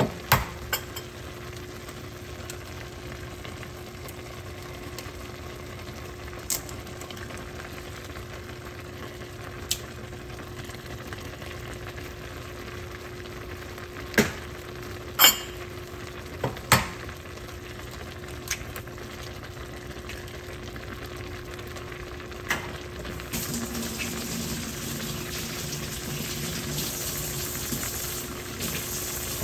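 A pot of instant ramyun bubbling at a steady boil over a faint steady hum. Sharp taps come just after the start and again in a cluster about halfway through, as eggs are cracked into the pot. The bubbling grows louder and hissier for the last several seconds.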